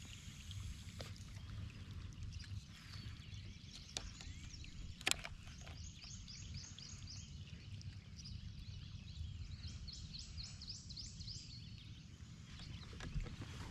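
Outdoor ambience with a steady low rumble, over which a bird chirps in two quick runs of high notes. There is a sharp tick about five seconds in.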